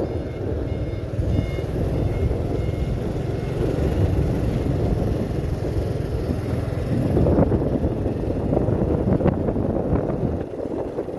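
A construction vehicle's reversing alarm beeps in short repeated pips during the first three seconds or so. Under it runs the steady low rumble of a moving vehicle.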